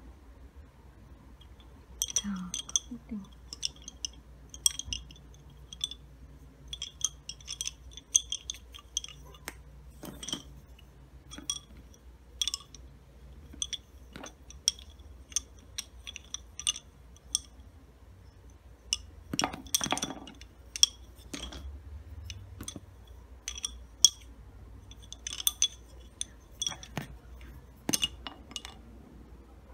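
Wooden lace bobbins clicking against one another as pairs are crossed and twisted in bobbin lacemaking. The light clicks come in irregular clusters, with a few louder knocks.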